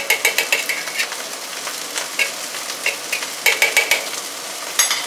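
Fried rice sizzling as it is stir-fried in a pan, with a spatula scraping and clinking against the pan in quick clusters at the start, about three and a half seconds in, and near the end.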